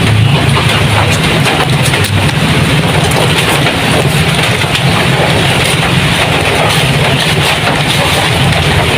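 Heavy rain falling on a corrugated zinc roof: a loud, steady rush with scattered sharp ticks of drops.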